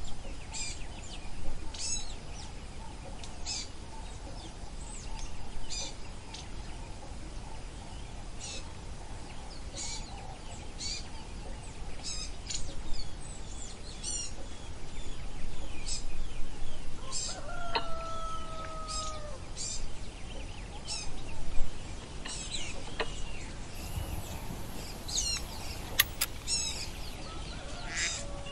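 Wild birds calling: short high chirps repeating about once a second, with a longer two-note call about two-thirds of the way through. A single sharp click near the end.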